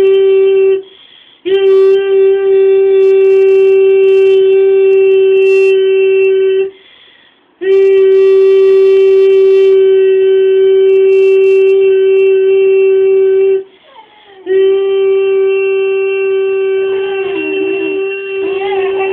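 A wind instrument holding one steady, unwavering note in long blows of five or six seconds, with short breaks between them. Near the end a cocker spaniel joins in with a wavering, sliding howl over the note.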